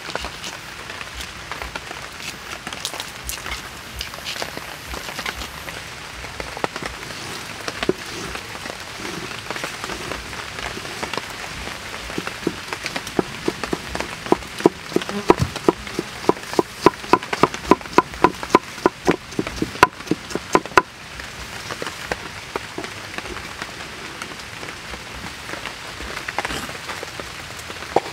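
A large kitchen knife cutting through pineapple flesh on a wooden chopping board. About halfway through comes a run of sharp, regular chopping knocks on the board, roughly three a second, lasting some eight seconds, as the blade minces a small pile of pieces.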